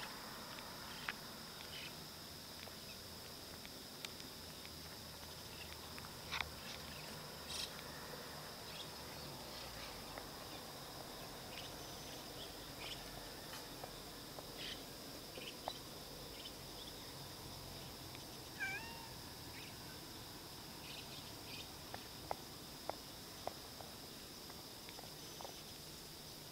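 A cat gives one short meow about two-thirds of the way through. Under it runs a steady high chirring of insects, with a few faint clicks.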